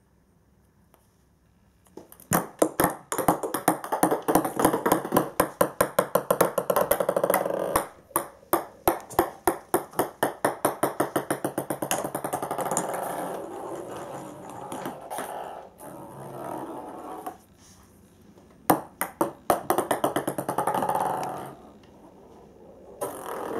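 Light plastic ping-pong balls dropping and bouncing on a wooden floor: run after run of sharp clicks that come quicker and fainter as each ball settles. The bouncing starts about two seconds in and goes on with a short lull near the end.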